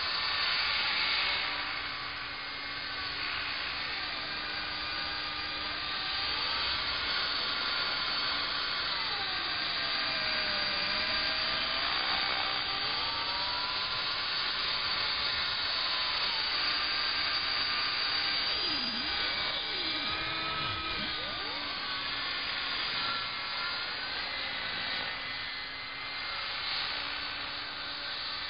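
Align T-Rex 500 electric RC helicopter in flight, its motor and rotor whine rising and falling in pitch as it moves about and passes overhead.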